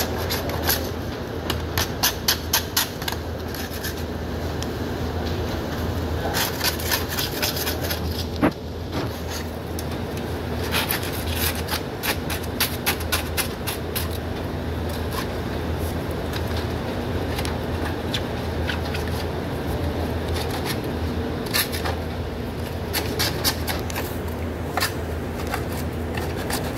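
A metal hand tool scraping and picking at the joint of a plastic sanitary waste pipe, in bursts of quick scratching strokes, with one sharp knock about eight seconds in. A steady low hum runs underneath.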